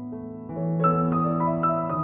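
Slow background music of held, sustained notes, with a louder chord coming in about half a second in.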